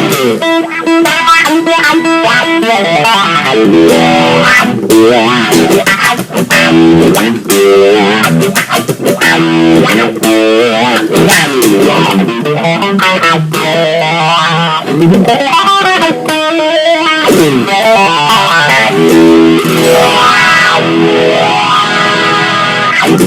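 Overdriven electric guitar played through a Dunlop Cry Baby 535Q wah pedal on its third setting, the wah sweeping the tone up and down over and over across the notes and chords.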